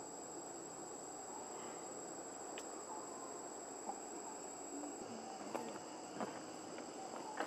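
Steady chorus of insects with a constant high, thin tone, and a few soft clicks in the second half.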